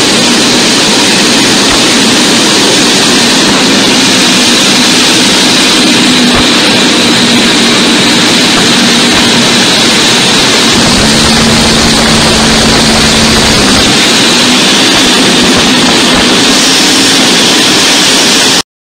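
Cockpit noise of a Cessna A-37B Dragonfly's twin J85 turbojets in flight: a loud, steady rush of engine and air with a high whine over a low hum. It stops abruptly near the end.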